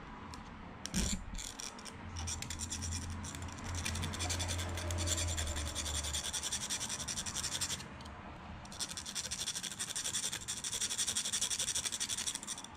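Piston ring end being filed on a hand flat file: quick scraping strokes in two runs with a short pause about eight seconds in, after a brief knock about a second in. The ring's end is being filed down on one side to widen its end gap.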